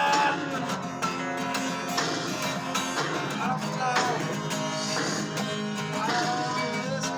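A song playing, led by strummed acoustic guitar.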